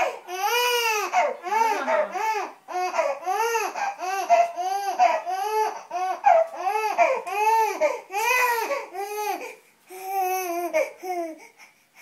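Baby crying in a steady string of short rising-and-falling wails, about two a second, which stop about eleven seconds in.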